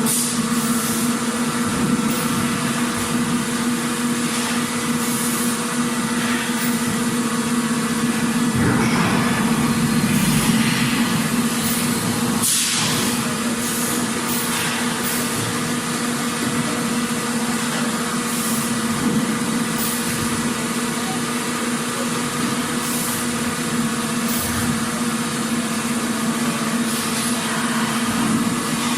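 Factory machinery running steadily: a constant mechanical hum with a pitched drone under a dense noise bed, broken now and then by short hisses and clatters, one louder hiss about twelve seconds in.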